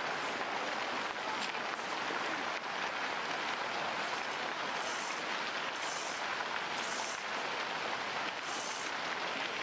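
Landslide debris, rocks and loose earth, sliding and trickling down a steep slope, heard as a steady rain-like hissing clatter. A few brief hissy spurts come through about halfway in and near the end.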